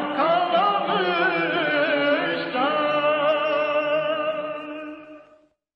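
Closing bars of a Turkish art song: a singer draws out the final note with vibrato and melodic turns, and the music fades out about five seconds in.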